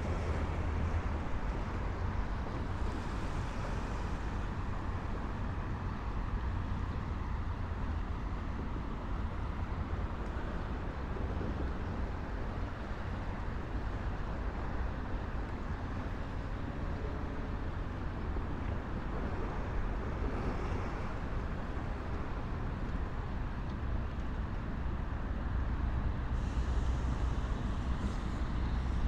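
Steady roadway traffic noise from cars on the Belt Parkway beside the shore path, with a constant low rumble and no distinct single events.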